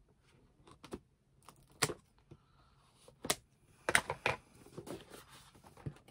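Scissors snipping at a cardboard mailer box, then the cardboard being handled and its flaps pulled open: a scatter of sharp clicks and rustles, the loudest cluster about four seconds in.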